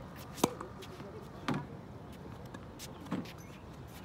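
Tennis racket striking a ball on a backhand: one sharp, loud pop about half a second in, followed by two duller knocks about a second and three seconds in.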